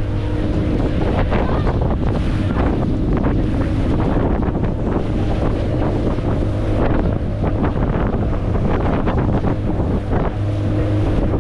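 Boat engine running steadily with a constant hum, under heavy wind noise on the microphone.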